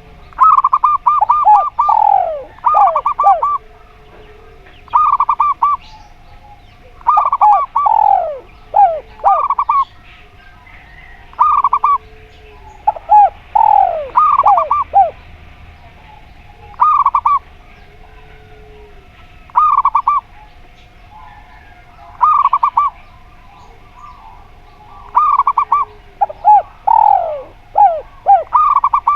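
Zebra dove (perkutut) cooing: repeated phrases of quick staccato notes, each ending in a few falling notes, every two or three seconds. Fainter, lower single coos sound in the gaps.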